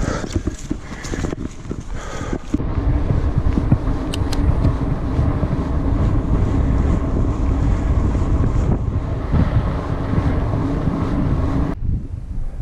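Mountain bike riding: a couple of seconds of rattling over a dirt singletrack, then a steady rolling hum of the tyres on a paved lane with wind buffeting the microphone. Near the end the rolling sound cuts off, leaving quieter wind noise.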